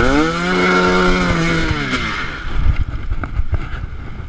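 KTM 250 TPI single-cylinder two-stroke engine revving up, holding high revs for about a second, then dropping off, followed by rumbling and a few sharp knocks.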